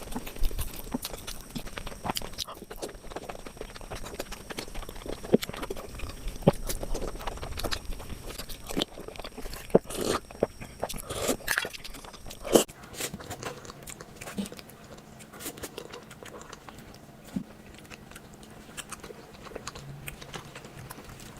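Close-miked eating sounds: a person biting into and chewing a sweet, with crisp crunches and wet mouth clicks. The bites come thick and loud for the first half, then the chewing turns sparse and softer.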